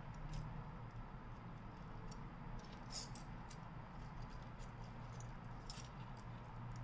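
Faint, irregular small clicks and taps of hard plastic model-kit parts being handled and snapped together, with a cluster of clicks about three seconds in and again near the end, over a steady low hum.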